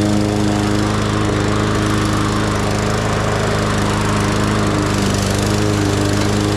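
Petrol lawn mower engine running steadily at an even speed while cutting grass.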